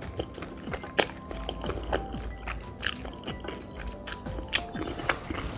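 Close-up mouth sounds of chewing a mouthful of cheesy spaghetti and meatballs: a run of sharp wet clicks and smacks, the sharpest about a second in, over soft background music.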